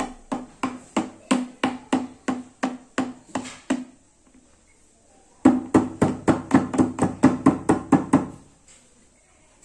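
A dish being tapped in a quick, even beat, about three strikes a second, each strike with a short ringing tone. The tapping breaks off for about a second and a half midway, then starts again a little faster.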